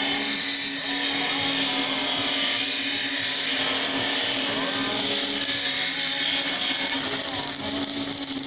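A power tool running steadily, a loud even hiss with no break, cutting off at the end.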